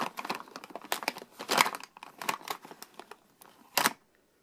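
A hand rummaging through makeup compacts and cases in a plastic storage bin: irregular clicks, knocks and rustling of plastic against plastic, with a sharper knock just before it stops.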